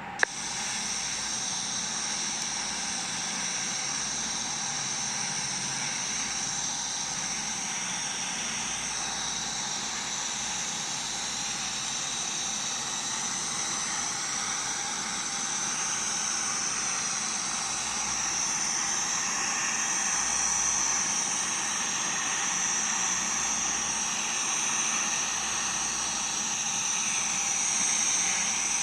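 Electric welding arc struck with a sharp crack right at the start, then burning with a steady hissing crackle for nearly half a minute as a 5G pipe weld is run.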